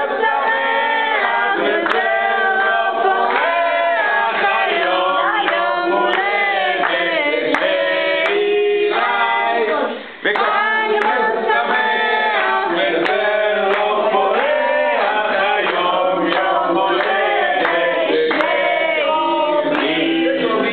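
A group of people singing a birthday song together, with hands clapping along. The singing stops briefly about halfway through, then carries on.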